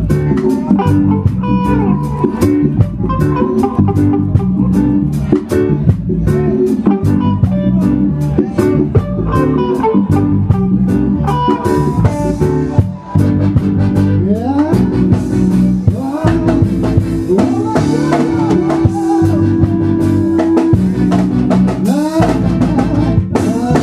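Band music with guitar, bass and drum kit playing to a steady beat. Sliding notes and a long held note come in during the second half, and it changes to a different track right at the end.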